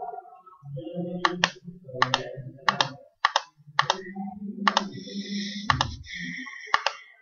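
Computer mouse and keyboard clicking, about ten sharp clicks at irregular intervals, over a low background murmur.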